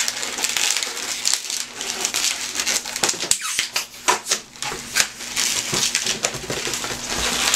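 Latex 260 twisting balloons squeaking and rubbing against each other as they are twisted and locked into ear twists: a run of irregular squeaks and crackles.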